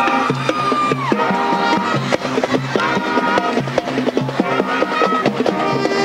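High school marching band playing: sustained horn notes over a busy, steady drum beat, with one note falling in pitch about a second in.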